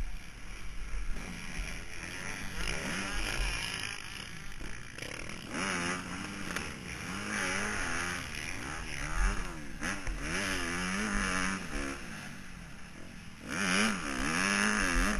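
Motocross bike engine revving up and down over and over as the throttle is opened and closed, with a low rumble underneath.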